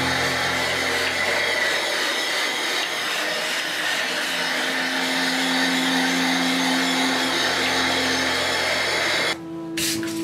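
A levigator, a round iron grinding disc, being swirled over a lithographic stone with grinding sand: a steady gritty scraping, with background music of sustained low tones. The scraping cuts off abruptly near the end.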